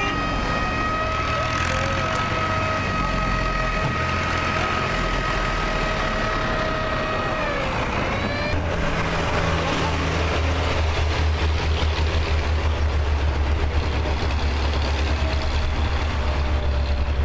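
A vehicle engine running, with a steady whine that drops in pitch about eight seconds in, then a fast, even low throbbing.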